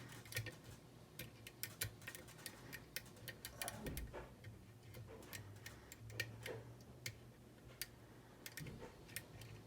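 Faint, irregular clicking of a lock pick raking and pushing the pin tumblers inside an ERA rim cylinder.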